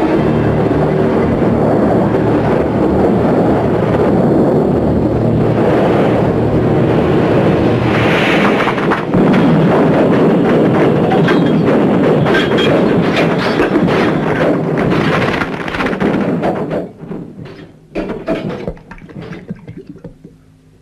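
A long, loud crash of a train collision: a dense din full of impacts and rattling. It breaks into separate clatters from about three quarters of the way through and dies away near the end.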